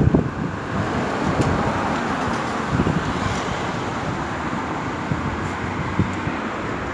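Wind buffeting the phone's microphone, heaviest in the first second, over the steady noise of cars driving past on the road.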